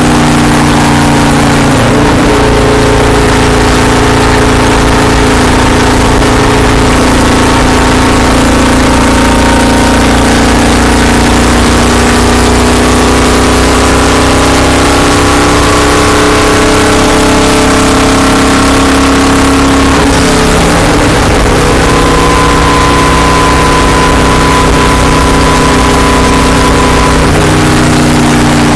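Stock car's V8 engine running hard at lap speed, heard very loud from inside the cockpit. Its pitch sags about two seconds in and again near twenty seconds, and climbs slowly in between.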